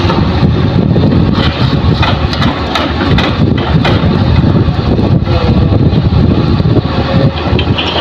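Hitachi hydraulic excavator's diesel engine running under load while it swings a bucket of earth fill over a dump truck and unloads it, with scattered short knocks and rattles as the load drops into the steel bed.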